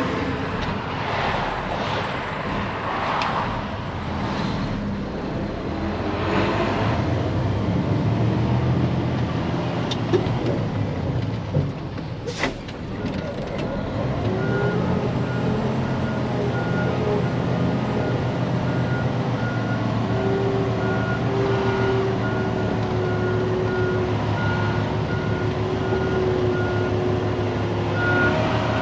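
Diesel engine of a semi truck running steadily, with a sharp click about twelve seconds in; from about halfway on the truck's reversing beeper sounds at an even pace, roughly two beeps a second, as it backs up.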